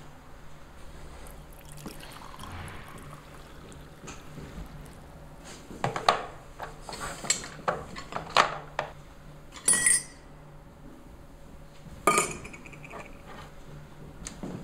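Hot drink being made at a table: a faint pour of water into a glass, then a run of knocks and clinks of a spoon against a glass and of mugs set down on the table, with two clinks that ring on briefly a little past the middle.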